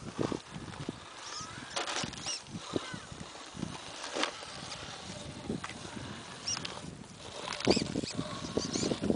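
Scattered knocks and scrapes of an Axial AX10 rock crawler's tyres and chassis on rock as it climbs over boulders, mixed with footsteps on rock and dry grass. The louder knocks come about two, four and eight seconds in.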